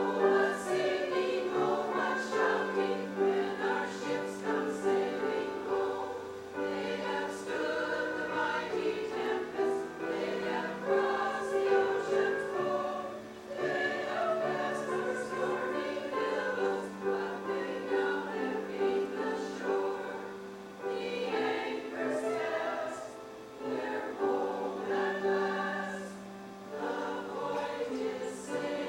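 A choir singing a sacred song, starting abruptly at the very beginning and carrying on steadily throughout.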